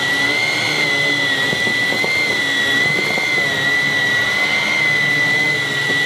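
Vax Cordless Blade 32V cordless stick vacuum running over a carpet: a steady high-pitched motor whine over a rush of air.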